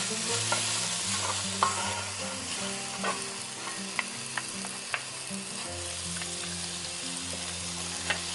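Two wooden spatulas tossing sticky dried anchovies, garlic slices and chillies in a nonstick frying pan. A light sizzle runs under the stirring, with occasional clicks of wood against the pan.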